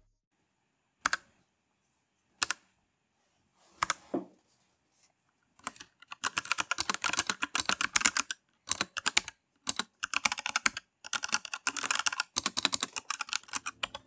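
Keystrokes on a MageGee MK-Box 65% mechanical keyboard with red switches, a quieter, non-clicky linear type: a few single key presses, then fast continuous typing from about six seconds in.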